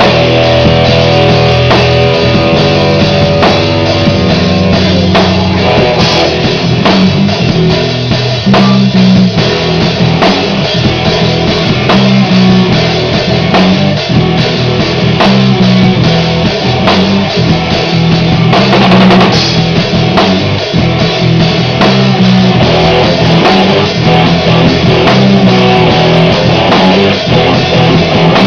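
A rock band playing live, with electric guitars through an amplifier and a drum kit, loud and continuous.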